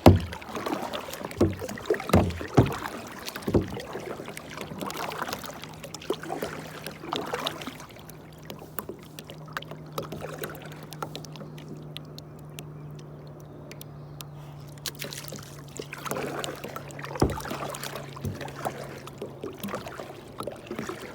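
Kayak being paddled: paddle splashes in the water and knocks against the hull, bunched in the first few seconds and again near the end, with a steady low hum through the middle.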